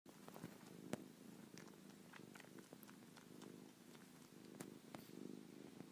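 Domestic cat purring faintly as it kneads a blanket, with a few faint clicks, one a little louder about a second in.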